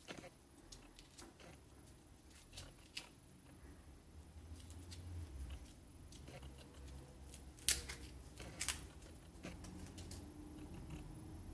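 Faint handling sounds of a NodeMCU ESP8266 board's header pins being worked out of a strip of packing foam: small scattered clicks and scratches, with two sharper clicks about a second apart near the middle as the board comes free. A low hum rises in the background in the second half.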